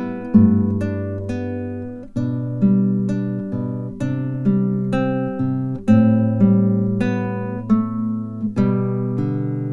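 Background music: an acoustic guitar playing a calm instrumental of plucked notes, each ringing on as the next begins.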